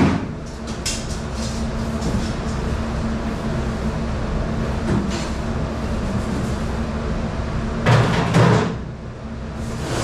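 Steady mechanical hum of commercial dish-room machinery running, with a sharp knock about a second in and two louder clattering bangs about eight seconds in.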